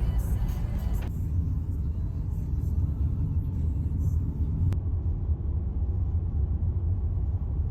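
Steady low rumble of a moving car, with the high frequencies thinning out about a second in.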